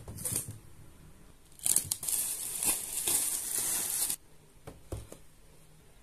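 Toy packaging being handled and torn open: a short rustle, then about two and a half seconds of tearing and crinkling that stops abruptly, followed by a couple of light clicks.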